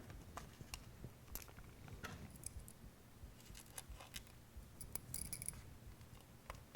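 Faint scattered clicks and small metallic ticks of a small screwdriver and tiny screws being handled while fastening a 2.5-inch hard drive into a drive frame, with a brief cluster of quick ticks about five seconds in.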